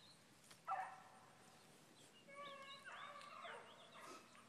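Rabbit-hunting dogs baying: a sharp yelp about two thirds of a second in, then a longer held bay near the middle followed by a few shorter calls.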